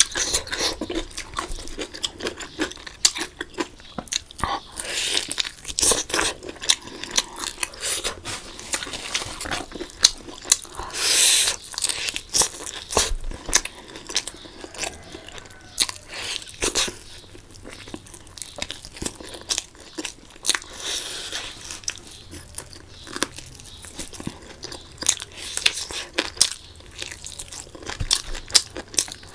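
Close-miked eating: irregular chewing, crunching and biting noises from a person's mouth, with a louder hissing burst about eleven seconds in.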